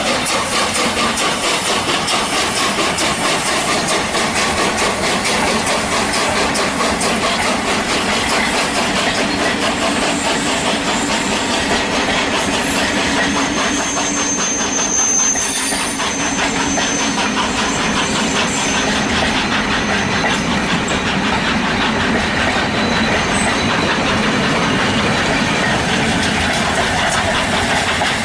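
Steam train running, with a rapid even beat and a steady hiss.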